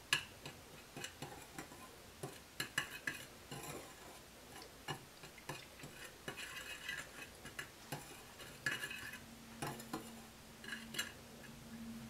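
Wire whisk stirring dry flour in a glass mixing bowl, with light, irregular clicks and scrapes as the wires knock against the glass.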